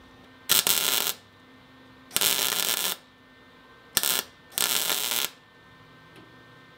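MIG welder laying four short welds on a sheet-steel fender flare, each a burst of arc crackle lasting under a second with short pauses between. A steel filler rod is being fed into a wide gap between flare and fender.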